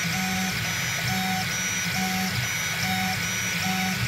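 Desktop FDM 3D printer printing: its stepper motors whine in short pitched tones that repeat in a regular pattern, about once a second, as the print head moves back and forth, over the steady hum of a cooling fan.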